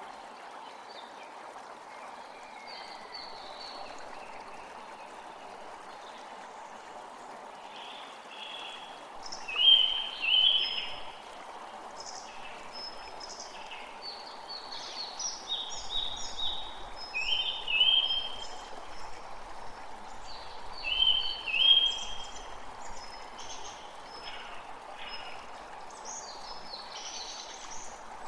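Songbirds singing short, repeated chirping phrases over a steady rush of running water. The loudest phrases come about ten seconds in and again around eighteen and twenty-two seconds.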